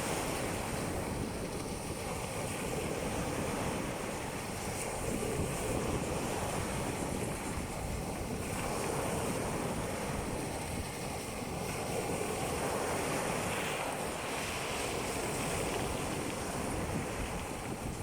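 Sea waves breaking and washing on the shore in a steady wash that swells and eases every few seconds, with wind buffeting the microphone.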